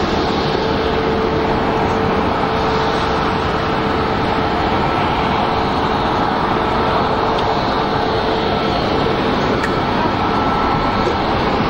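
Steady jet engine noise from a Boeing 737 taxiing at idle power. A steady hum sits under it and fades out about three-quarters of the way through.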